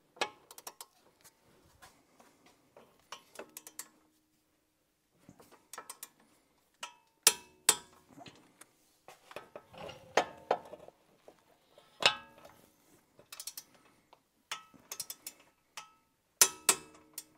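Click-type torque wrench ratcheting in short runs of clicks while tightening the brake caliper bracket bolts to 88 foot-pounds, with a few louder, sharper clicks among them.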